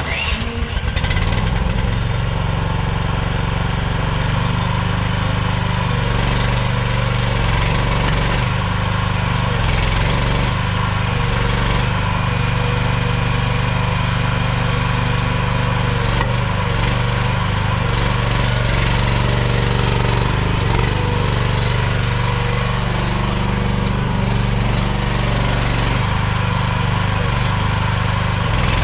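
Engine of an AGT MX15R mini excavator running steadily.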